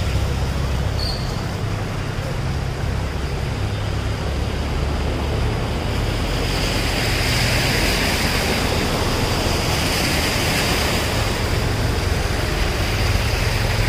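Mahindra tractor's diesel engine running low as it drives up a flooded street, over a steady wash of moving water. From about halfway a hissing swell grows, and a thin high whine runs throughout.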